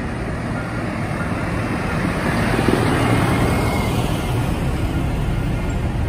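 A large farm tractor driving past close by, its diesel engine rumbling and growing louder to a peak about halfway through, then easing off as cars follow.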